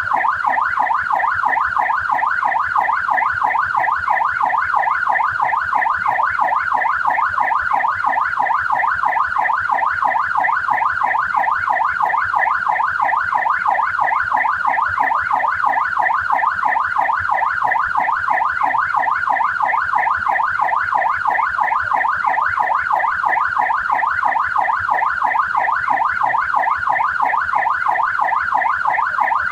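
Australian police car siren in yelp mode: rapid, evenly repeating rising-and-falling sweeps, steady and unbroken.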